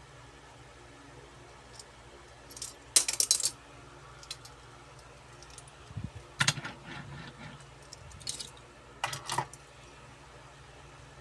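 Hot Wheels diecast metal toy cars clinking and clattering against one another as they are handled, set down and picked up from a pile. The clinks come in three short bursts.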